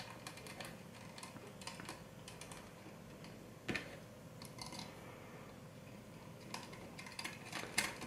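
Faint small metal clicks and taps of hex standoff screws being fitted by hand into a graphics card's metal slot bracket. One sharper click comes about three and a half seconds in, and a quick run of clicks near the end.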